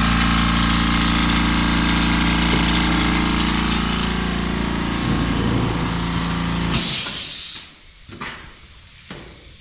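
Small portable air compressor running steadily, pressurizing new copper water lines for an air pressure test at about 90 psi. About seven seconds in it stops with a short hiss of air, and a few faint knocks follow.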